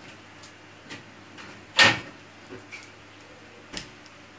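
Kitchen handling noises: a few short knocks, one loud sharp clack about two seconds in and a softer one near the end.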